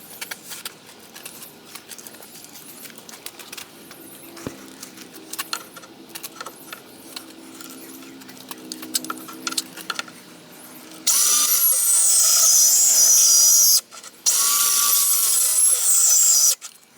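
Electric power saw running in two loud bursts, about three seconds and then two seconds with a short break between, starting about eleven seconds in. Before that, light clicks and knocks of handling.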